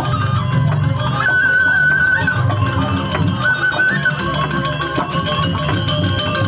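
Traditional Balinese ceremonial music playing loudly: a high melody holds long, wavering notes over a dense, pulsing low rhythm.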